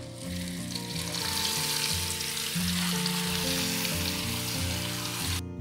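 Crab pieces frying in hot oil in a pan: a loud, steady sizzle that builds just after the start and cuts off abruptly near the end. Background music plays underneath.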